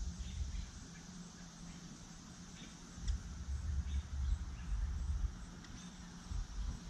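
Outdoor ambience: gusts of wind rumbling on the microphone, strongest from about three seconds in, over a steady high insect buzz, with short bird chirps now and then.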